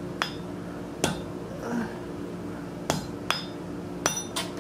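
Hand hammer striking red-hot steel held over a hot-cut hardy on the anvil, cutting off the end of a forge-welded scroll piece: about six irregularly spaced blows, some with a short metallic ring.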